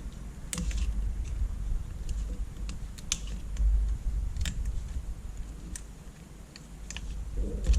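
Scattered light clicks and taps from small parts of an LCD screen being handled on a workbench, with a few dull low bumps.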